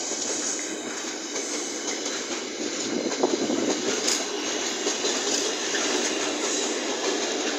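Container wagons of a freight train rolling past at speed: a steady rumble of steel wheels on the rails, with a few sharp clicks from the wheels.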